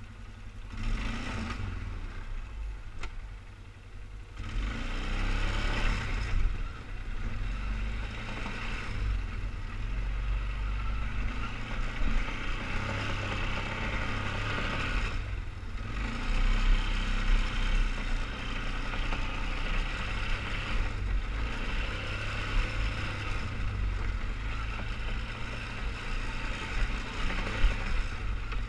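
2003 Polaris Sportsman 500 HO 6x6 ATV's single-cylinder engine running as the machine is ridden, the throttle rising and falling, with brief dips about three seconds and fifteen seconds in.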